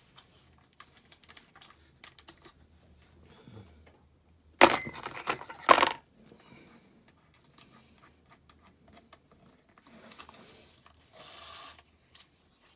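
Small metal clicks and clinks of die-cast toy vans and tools being handled on a workbench, with a louder clatter about five seconds in.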